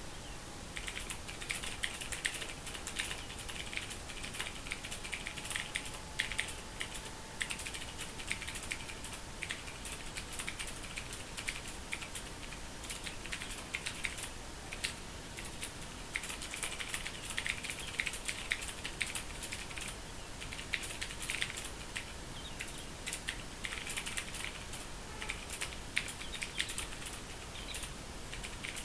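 Fast typing on a Ducky Mecha mechanical keyboard: rapid runs of key clicks with short pauses between them, starting just under a second in.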